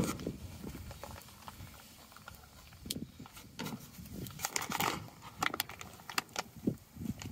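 Paper masking stencil crinkling and a plastic squeegee scraping over it on a truck door: scattered short rustles and clicks, quiet for the first few seconds and busiest in the second half.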